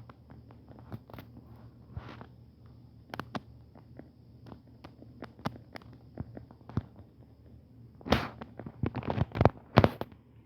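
Scattered light clicks and knocks at irregular intervals, with a louder, quicker flurry of them about eight seconds in.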